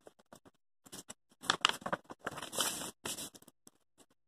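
Sheets of thick, glossy decorative paper being handled and swapped on the floor, rustling and crinkling in several bursts, loudest around the middle.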